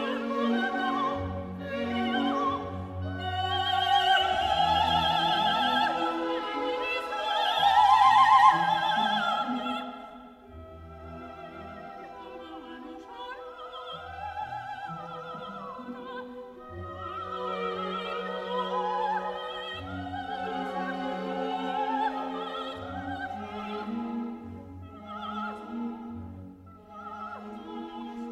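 Operatic singing with vibrato over an orchestra as a music soundtrack. It swells to a loud high note about eight seconds in, then drops to a softer passage.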